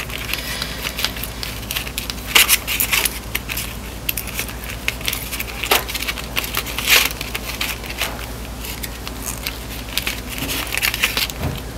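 Small steel roller chain from a Scott Bonnar 45 cylinder mower clinking and rattling in the hands, with irregular light metallic clicks as its split link is worked apart. A few louder clinks come about two, six and seven seconds in.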